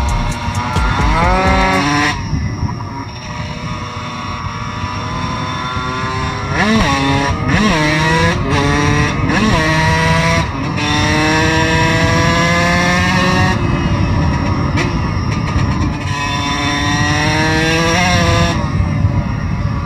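Dirt bike engine heard from on board, revved hard through the gears. Its pitch climbs, then drops sharply at each shift, with a run of quick shifts in the middle and longer, slower climbs near the end.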